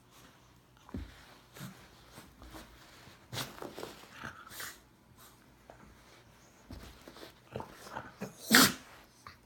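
A Brittany dog making short noisy sounds with its nose and mouth, in a cluster a few seconds in, then one loud sharp burst near the end.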